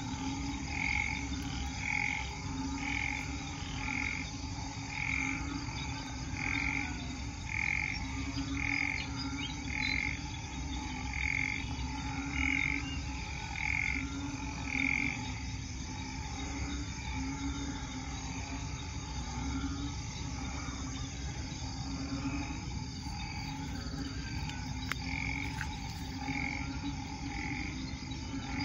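A chorus of frogs calling after heavy rain, led by the low, pulsing calls of banded bullfrogs. A higher call repeats about once a second through the first half, then comes only now and then.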